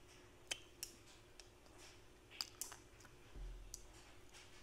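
A few faint, sharp clicks and taps of eating at a table, with a brief low thump about three and a half seconds in, over near silence.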